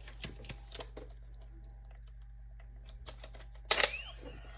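Small plastic clicks and taps of a toy morpher and its cards being handled, with one louder sharp clack about three-quarters of the way through.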